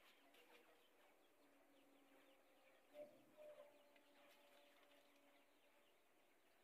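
Near silence with faint bird calls: many short, thin chirps and a faint, drawn-out low cooing tone, with two slightly louder calls about three seconds in.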